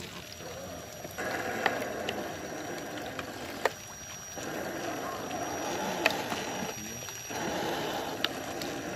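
Electric motor and tyres of a 1/10-scale RC crawler truck working slowly over wet mud and twigs, a rough noise that comes and goes in stretches, with four sharp clicks or snaps about two seconds apart.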